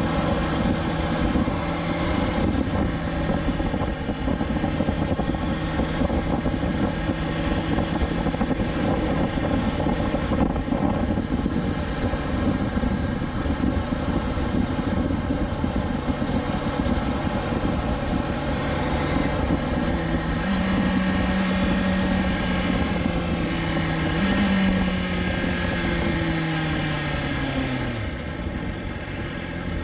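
BMW S1000XR inline-four engine running at steady revs under way. The revs step up twice in the last third, then fall away smoothly as the bike slows near the end.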